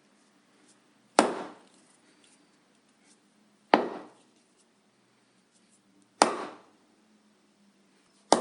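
Rubber mallet striking a piece of wood: single blows about two and a half seconds apart, three of them plus a fourth right at the end, each a sharp knock that dies away within half a second.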